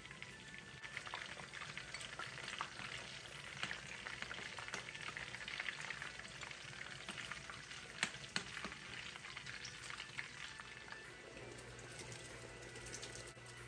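Food sizzling and crackling as it fries in hot oil, with a couple of sharp clinks about eight seconds in. Near the end, a short rattle as peas are tipped into a pot.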